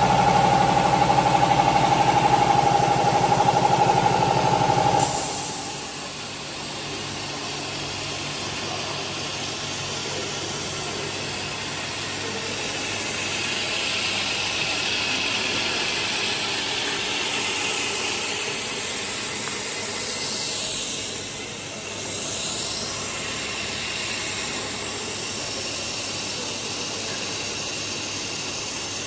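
Filament extrusion line running: a motor on the cooling water tank hums steadily, giving way about five seconds in to a quieter, steady machinery hiss.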